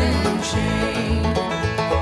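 Bluegrass music: a string band with banjo and guitar playing to a steady beat.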